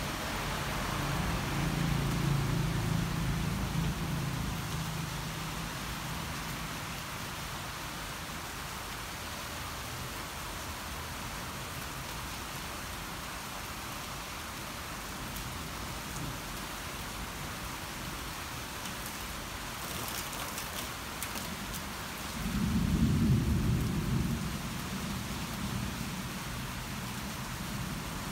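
Thunder rumbling over steady rain: a low rumble in the first few seconds, then a louder peal about 22 seconds in that swells and fades.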